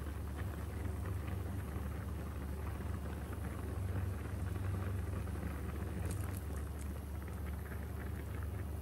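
Spicy pork rib sauce boiling hard in a frying pan on high heat, a dense crackle of bursting bubbles over a steady low hum, with a few sharper clicks about six seconds in.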